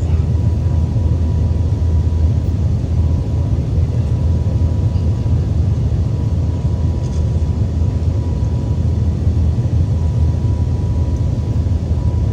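Airbus A380 cabin noise: a steady low rumble of the four jet engines and airflow, heard from inside the passenger cabin, with a faint steady whine.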